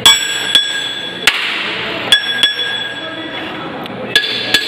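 Hammer striking the crown wheel assembly of a BharatBenz 3723 truck differential: several sharp metal blows, the strongest three ringing on with a clear bell-like tone, during a check of the crown and pinion play.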